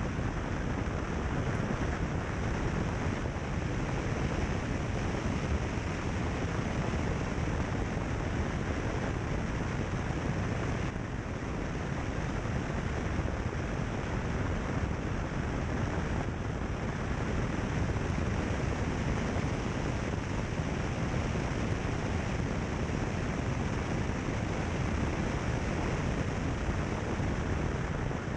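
Steady wind rush on the microphone mixed with the tyre and road noise of a car driving along a gravel road, picked up by a camera mounted on the car's bonnet.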